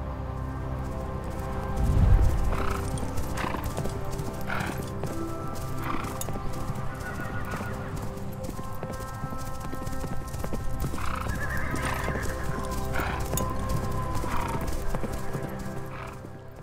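Horses galloping, their hoofbeats running on with short whinnies now and then and a longer falling whinny near the end, over background music with sustained chords. There is a heavy thump about two seconds in, and everything fades out at the close.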